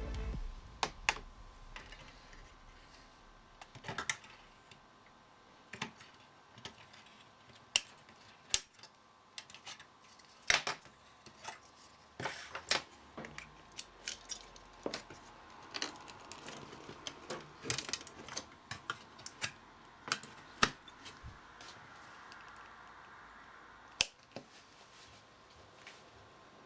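Irregular sharp clicks and knocks of expansion cards and RAM modules being pulled out of and pushed into the slots of a Socket 4 Pentium motherboard.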